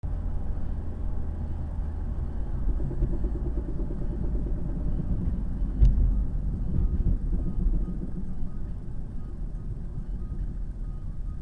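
Ford Mondeo Mk3 on the move with steady road rumble and one sharp knock about six seconds in: the knock that comes while driving, which the owner is trying to trace.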